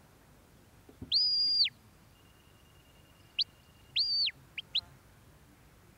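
A sheepdog handler's shepherd's whistle giving commands to a working Border Collie: a long note that rises, holds high and drops away, a short rising pip, a second long held note, then two quick rising pips.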